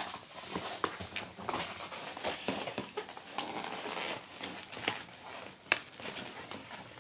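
Large cardboard box being torn and pulled apart by hand: irregular ripping, rustling and knocks of cardboard and packing, with one sharper crack near the end.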